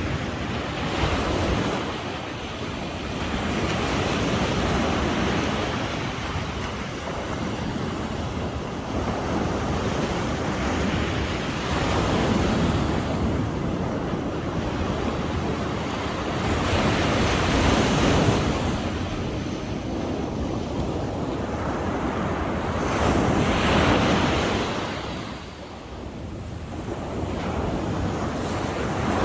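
Sea waves breaking and washing ashore, the surf swelling and easing in surges every few seconds.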